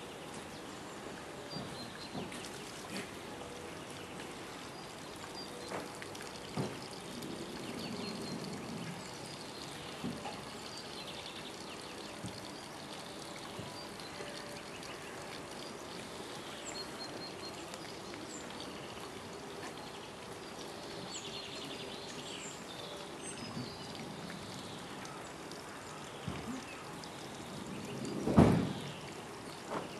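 Red river hog urinating: a long, steady stream of urine pouring and splashing onto wet mud and puddle water. Faint bird chirps, and a sharp loud knock near the end.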